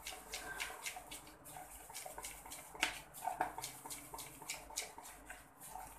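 A hand mixing prawns through a wet egg-and-flour batter in a bowl: irregular squelching and slapping strokes several times a second, one louder about three seconds in.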